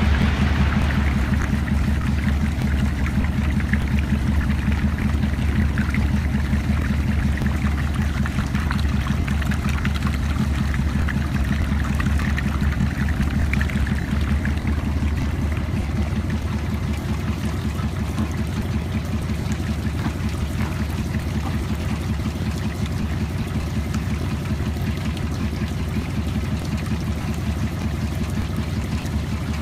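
A gold-sand shaking table running: a steady low machine hum from its drive, with wash water splashing and flowing across the riffled deck. The water sound is stronger in the first half and eases off later.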